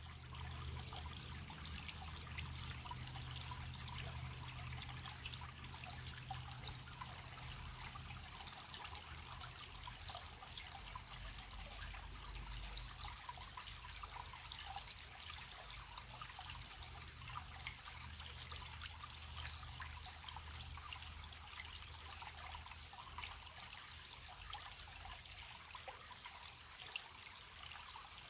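A gentle stream babbling steadily, with a low rumble underneath. Crickets chirp in a faint, evenly pulsing high note.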